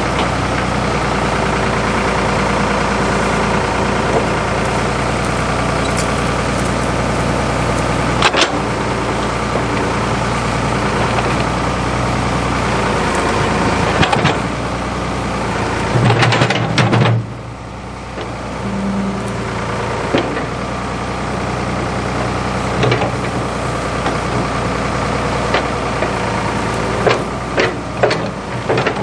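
Ford 555 backhoe loader's engine running steadily under work, with occasional knocks and clanks. About halfway through it gets louder for a second, then drops off suddenly to a lower, quieter run. A quick series of knocks comes near the end.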